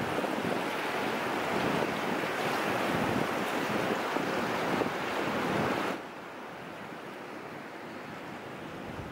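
White water rushing through a river dam's open gates and churning below them, a loud steady rush; about six seconds in it drops suddenly to a quieter, duller hiss.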